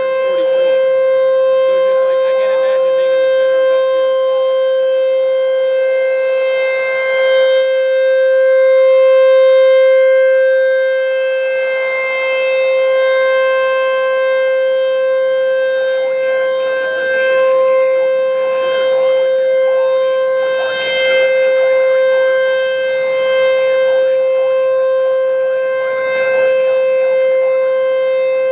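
American Signal T-128 rotating outdoor warning siren sounding a steady, unwavering tone during its scheduled monthly test, the sound swelling and fading in loudness every few seconds.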